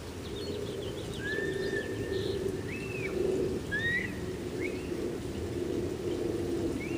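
Birds calling: several drawn-out whistled notes that slide up and then hold, with faint short chirps, over a steady low rumble and hiss.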